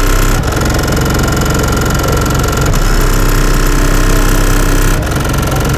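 Single Skar ZvX 18-inch subwoofer in a ported box tuned to 35 Hz, driven by an Audiopipe 1800 amplifier, playing a bass-heavy song very loud from the truck's back seat, heard from outside the truck. The deep bass holds steady throughout.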